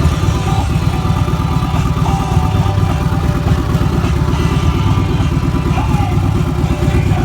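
Harley-Davidson Street Glide's V-twin engine running at idle: a steady, loud, rapid low pulse from the exhaust.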